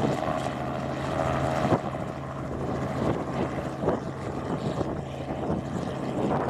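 Small two-bladed helicopter hovering low: a steady engine and rotor drone with a constant low hum.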